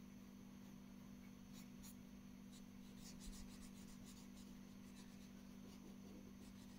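Faint scratching of a felt-tip marker rubbed back and forth across paper in colouring strokes, coming in short runs of quick strokes, over a steady low hum.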